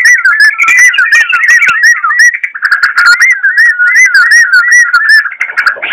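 Sooty-headed bulbul (trucukan garuda) singing a loud, unbroken run of quick looping whistled notes, several a second.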